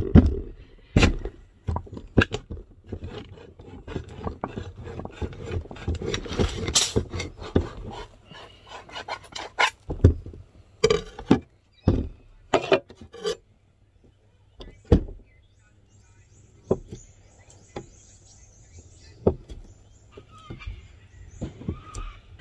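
A metal tin of Spam being worked open and emptied on a wooden cutting board. Several seconds of metal scraping and rubbing with clicks give way to a run of sharp knocks against the board, ending in a few light taps.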